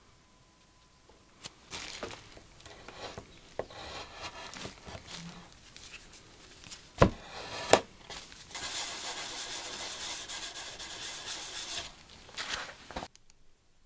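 Green pad rubbing back and forth over a stained wooden frame across a joint filled with hard wax, making scratchy rubbing strokes. There are two sharp knocks about halfway through, then a steady stretch of rubbing that stops about a second before the end.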